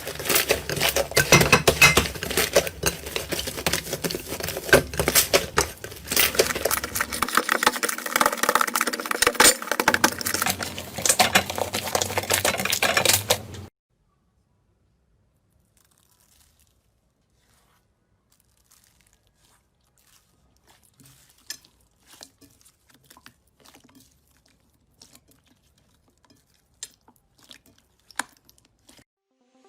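Slime being squeezed and worked by hand: a dense run of crackling, popping clicks that stops abruptly about halfway, followed by only faint, scattered clicks.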